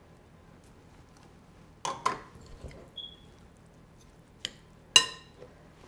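Metal spoon stirring a moist chicken, broccoli and water-chestnut filling in a glass mixing bowl: soft squishing, with a few clinks against the glass, the loudest and ringing one near the end.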